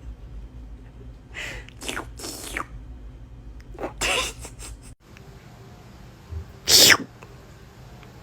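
A person's mouth making short, wet slurping noises in imitation of a cat licking itself. There is a quick run of four slurps in the first few seconds, another about four seconds in, and a single louder slurp near the end.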